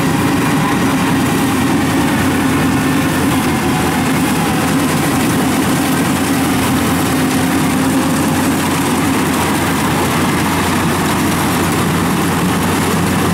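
Yanmar rice combine harvester running steadily while cutting standing rice: a loud, even engine drone with a constant hum.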